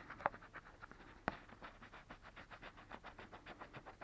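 Faint, rapid scratching on a scratch-off lottery calendar ticket, about six strokes a second, as the coating is rubbed off a panel to reveal the symbol beneath. Two sharper clicks come near the start and about a second in.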